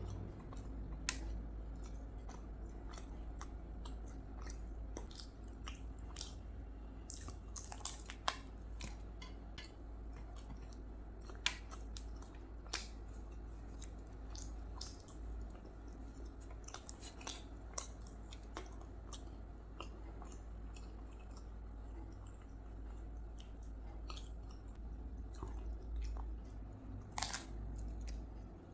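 Close-miked chewing of a person eating rice with curry: soft wet mouth clicks and smacks scattered irregularly throughout, over a steady low hum.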